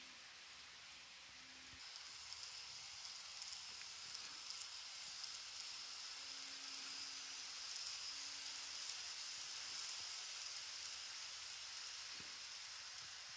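KATO N-scale 381 series Yuttari Yakumo model train running close by on its track, a steady faint hiss with a high whine from its motor and wheels. It swells about two seconds in, is loudest around the middle and eases a little near the end.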